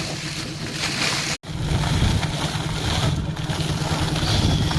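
Air compressor flushing out a borewell: water and air gushing from the bore in repeated surges over the compressor engine's low running. The sound drops out for an instant about a second and a half in, after which the engine is louder.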